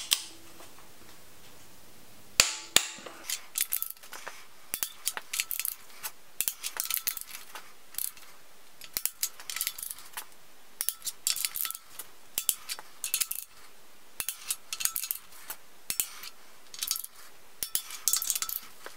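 Click-type torque wrench ratcheting on cylinder head bolts: repeated bursts of fast ratchet clicks as the handle swings back between pulls, with a few sharper single clicks among them. This is the head bolts being tightened to their torque spec.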